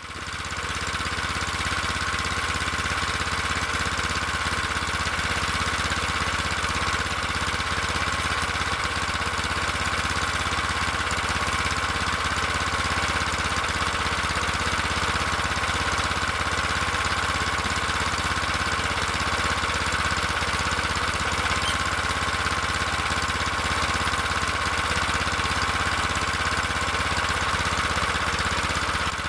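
Homemade snowmobile's engine running steadily, holding an even note with no change in revs.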